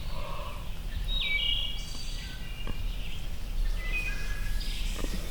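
Wood thrush and red-eyed vireo singing: a run of short, clear whistled phrases, some falling in pitch, over a steady low background rumble.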